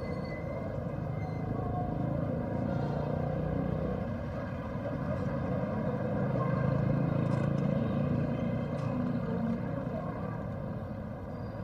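Steady street noise dominated by traffic, a continuous low rumble with no single event standing out.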